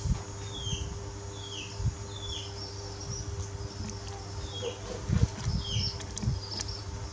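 About five short, high chirps, each falling in pitch, spread through the stretch, from a small animal or bird. A steady faint hum runs underneath, and low muffled thumps, like handling, come about five seconds in.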